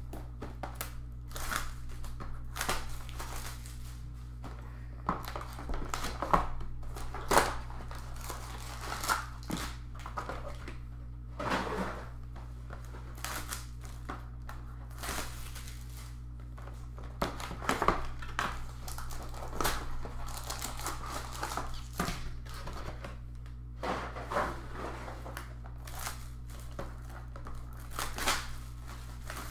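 Card packs being torn open and their foil wrappers crinkled, in irregular rustles and crackles, with a steady low hum underneath.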